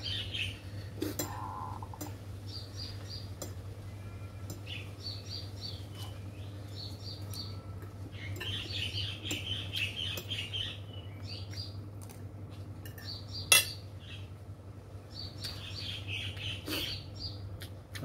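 Spoon and fork scraping and clinking on a plate as rice is eaten, with one sharp clink about three-quarters of the way through. A bird sings a short repeated phrase every couple of seconds.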